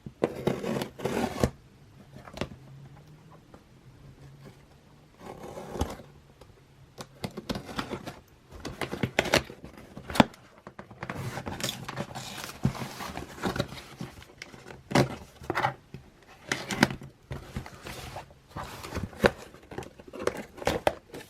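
A parcel being opened by hand: packaging tearing, scraping and rustling in irregular bursts, with sharp clicks among them.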